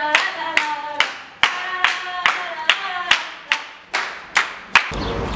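Steady rhythmic hand-clapping, a little over two claps a second, with voices singing held notes between the claps. It cuts off just before the end and gives way to a low street rumble.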